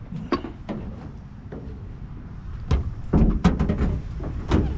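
A series of knocks and clunks over a low rumble, loudest in a quick cluster about three seconds in, with another knock near the end.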